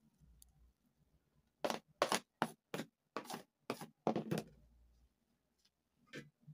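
A bunch of fresh coriander shaken by hand, its leaves and stems swishing in a quick run of about eight short rustles, then one more near the end.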